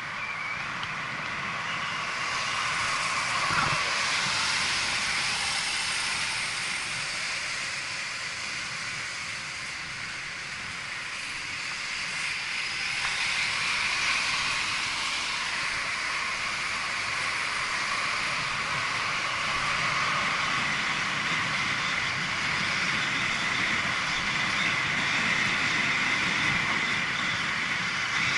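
Steady rushing hiss of wind and road noise on a bicycle-mounted action camera moving at speed, swelling about halfway through as a coach drives close alongside.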